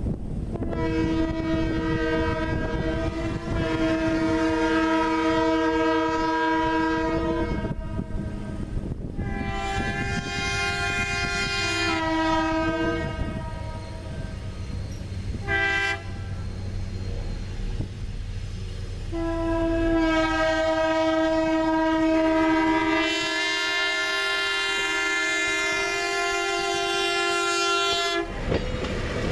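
Diesel locomotive's multi-note air horn blowing the grade-crossing signal as the Nebraska Zephyr streamliner approaches: long, long, short, long. The last blast cuts off as the stainless-steel cars begin rolling past.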